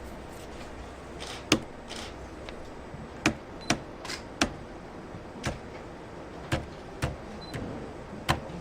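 Single keys on a Galleria VF-HG keyboard pressed one at a time: about nine separate clacks at uneven spacing.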